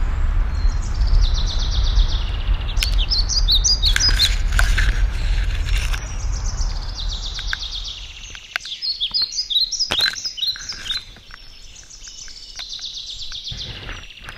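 Small birds chirping and trilling repeatedly in the bush, over a low rumble that fades out about eight seconds in, with scattered clicks and snaps from footsteps and branches brushing past.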